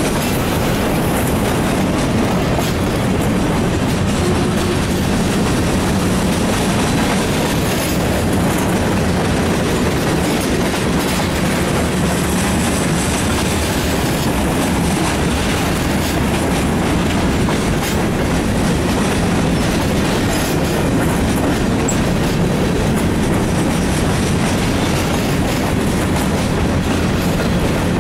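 Freight cars of a mixed freight train rolling past: the steady, loud noise of steel wheels on the rails.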